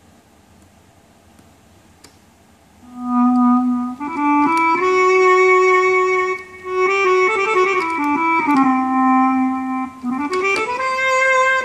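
Turkish clarinet voice on a Korg Pa600 QT arranger keyboard playing a solo melody. It starts about three seconds in, with held notes joined by pitch slides and a rising bend near the end.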